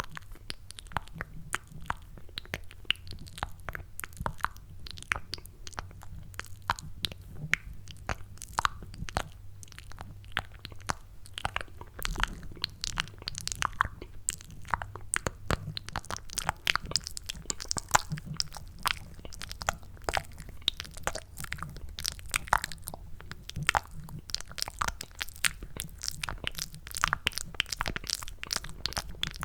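Close-miked ASMR mouth sounds made with cupped hands: a rapid, continuous run of wet clicks and smacks, like chewing soft mac and cheese.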